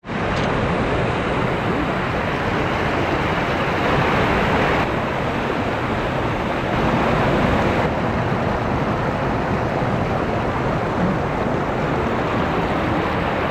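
Mountain stream rushing over rocks in small cascades: a steady, loud rush of water whose tone shifts slightly twice, about five and eight seconds in.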